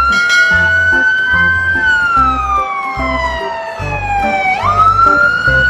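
British fire engine siren wailing: its pitch rises slowly, falls over about two and a half seconds, then sweeps quickly back up near the end. A regular low beat runs underneath.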